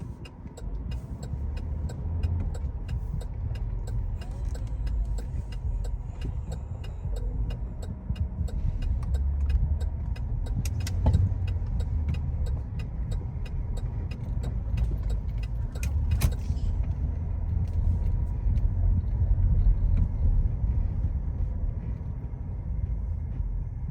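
A car driving, heard from inside the cabin: a steady low rumble of road and engine, with light ticking that stops about two-thirds of the way through.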